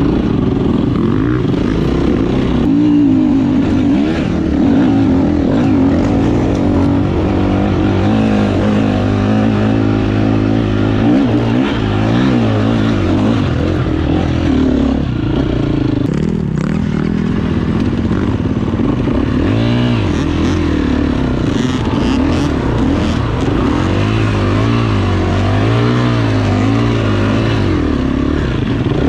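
Dirt bike engine running hard under load, its pitch rising and falling over and over as the throttle opens and closes on rough ground.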